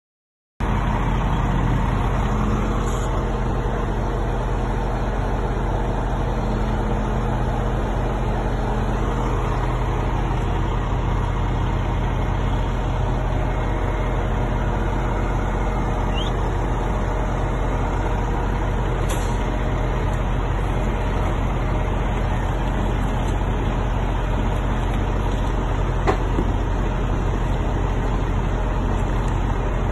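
Semi tractor's diesel engine running steadily at a constant pitch, with no revving, starting abruptly just after a moment of silence. A single short click sounds near the end.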